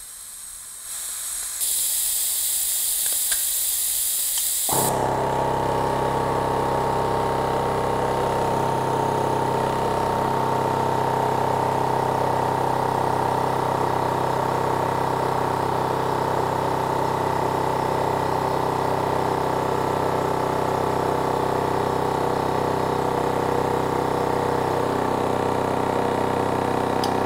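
Makita 40V XGT AC001G cordless 2-gallon Quiet Series air compressor: air hisses out of the tank for about three seconds, then the brushless motor and pump kick on at about 105 PSI and run steadily with a low hum and a steady whine. It refills the tank for about 22 seconds and shuts off at full pressure right at the end.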